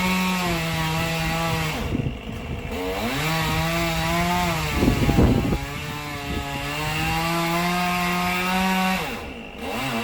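Two-stroke chainsaw cutting wood, its engine held at full throttle in three runs and dropping back between them, with a rough louder stretch about halfway through.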